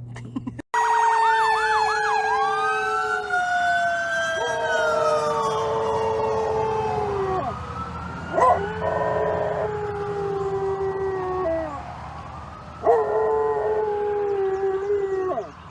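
A dog howling in long held notes along with a wailing emergency-vehicle siren. The siren's pitch sweeps up and down throughout, and the howls come in several drawn-out stretches over it.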